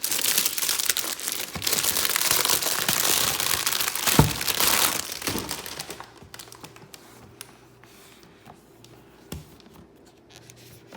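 Packaging being crinkled and torn open by hand, with a dense run of crackling for about five seconds and one sharp knock partway through, then only faint scattered rustles and clicks as the handling slows.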